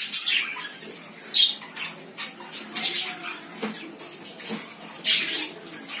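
Several budgerigars chirping and chattering in short, irregular high-pitched calls, loudest at the start, about a second and a half in, and again near the end.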